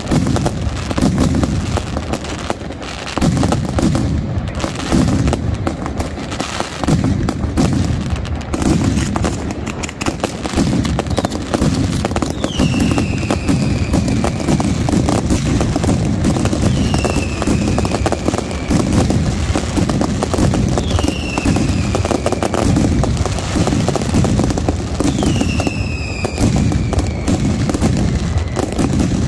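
Mascletà firecracker barrage: a dense, continuous rattle of rapid bangs with no break. From about halfway, a whistling firework gives a falling whistle every few seconds over the bangs.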